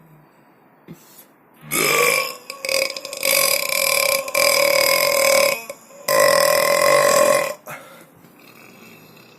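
A person burping: long, drawn-out belches held at a steady pitch, about three in a row with short breaks between them, starting a little under two seconds in.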